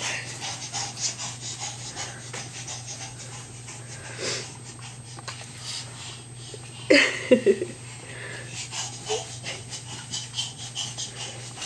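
Rapid, heavy panting, several breaths a second, from running around until worn out. A brief, louder pitched squeak comes about seven seconds in.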